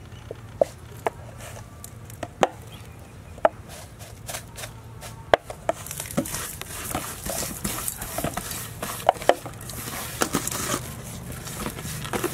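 Fingers mixing a dry, crumbly powder in a stainless steel bowl: scattered sharp taps and scrapes against the metal, turning into a steadier gritty rustle from about six seconds in as the powder is rubbed around the bowl.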